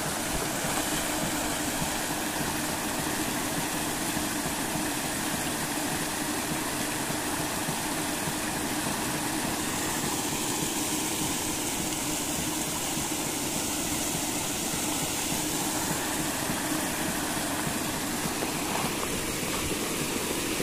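Paddlewheel aerators running on a shrimp pond: a steady motor hum under continuous splashing and churning water.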